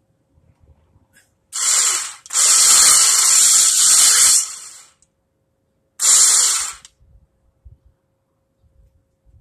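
Electric winch running in three bursts, a short one, a longer one of about two seconds, then another short one, as it pays out cable.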